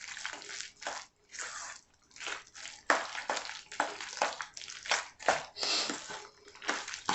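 Shredded lettuce dressed with mayonnaise being mixed in a bowl: irregular wet crunching and squishing strokes, about two or three a second.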